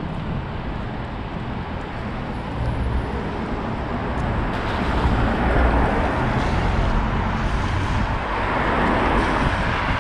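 Road traffic: cars driving past with engine and tyre noise, growing louder about halfway through.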